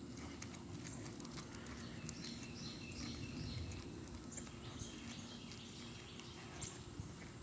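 Footsteps on an asphalt road: slide sandals scuffing and patting as a person walks a German shepherd on a leash, a scatter of light clicks and taps.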